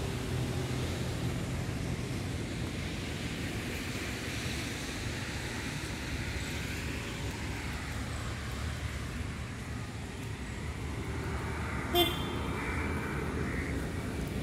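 Steady low rumble of road traffic, with a brief sharp sound about twelve seconds in.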